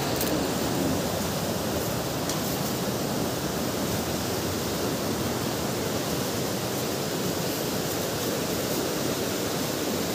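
Rocky river rushing over and between boulders: a steady, even noise of white water.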